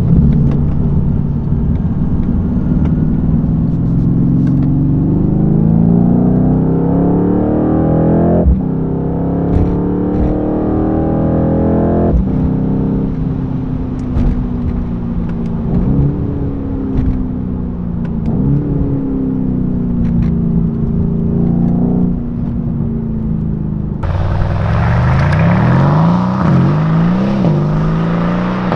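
Mercedes-AMG C63 S's 4.0-litre twin-turbo V8 under acceleration, heard from the cabin: the pitch climbs through the gears and drops sharply at each upshift of the 9-speed gearbox, twice in quick succession, then holds steadier with a few brief rises. Near the end the engine is heard from outside the car, climbing in pitch again as it accelerates.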